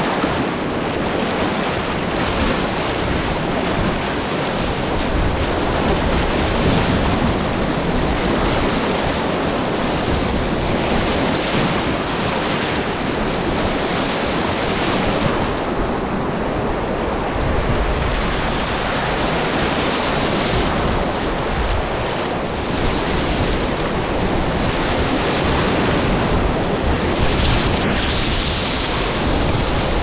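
Whitewater rapids rushing and splashing around an inflatable kayak, a steady, unbroken noise of churning river water.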